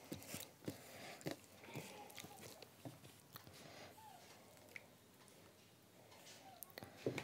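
Faint, scattered soft clicks and squelches of fingers mixing rice with curry on a plate.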